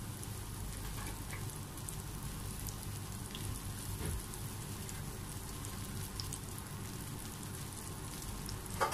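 Battered cauliflower florets deep-frying in hot oil in a frying pan: a steady sizzle with scattered small crackles, a little louder about four seconds in.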